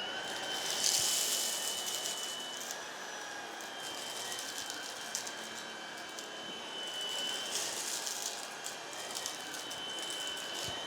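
Tineco PURE ONE S11 cordless stick vacuum running on carpet, its motor giving a steady high whine. The hiss swells twice, about a second in and again around seven to eight seconds.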